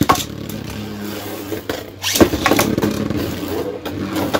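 Two Beyblade Burst tops, a heavy Guilty Longinus Charge Metal Dash 2 and a Vanish Bahamut Baron Dash 3, spinning in a plastic stadium with a steady whirring hum. Sharp clacks are heard where they clash, the loudest a little over two seconds in.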